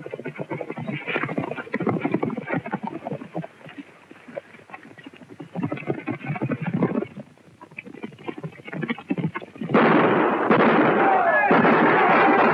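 Horses moving at night in an old 1930s film soundtrack, their hooves and tack clattering irregularly. About ten seconds in, a sudden loud din of gunshots and commotion breaks out.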